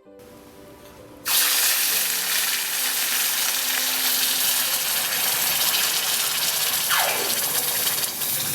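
Hot investment flask, just cast with gold, quenched in water: a loud rushing hiss of boiling and bubbling starts suddenly about a second in, with a short falling whistle near the end. Quiet background music plays underneath.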